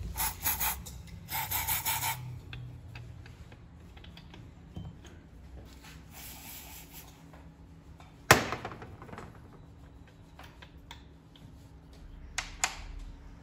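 Hand work on a two-stroke engine's piston and rings: rubbing and scraping of parts being handled, with one sharp click about eight seconds in and a couple of lighter clicks near the end.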